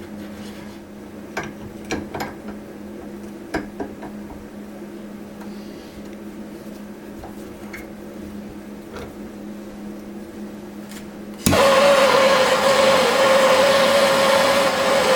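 A few light clicks of tools being handled over a steady low hum. About eleven seconds in, a loud, steady mechanical whirring starts abruptly and keeps going.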